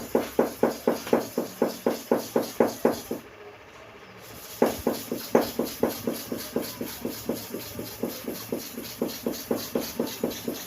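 Hair clipper blade rubbed back and forth on a sharpening stone in quick, even strokes, about four a second. The strokes pause briefly a little after three seconds in, then start again.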